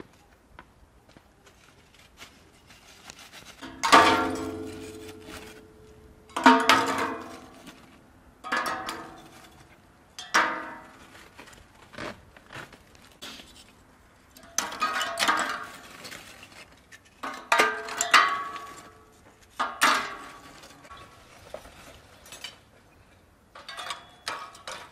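Rusty steel grill frame and rods of a shawarma oven being handled and fitted together: a series of metal clanks, about a dozen, each ringing on briefly as it fades.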